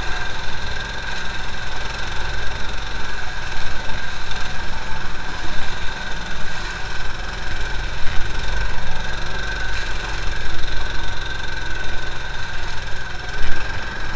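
IRBIS Mukhtar 15 motorized tug's engine running steadily while driving, with a steady high whine over the engine noise.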